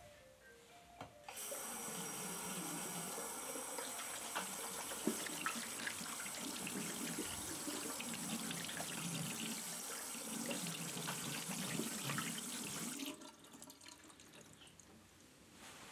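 Water tap turned on and running into a sink: the flow starts suddenly about a second in, runs steadily for about twelve seconds, then is shut off.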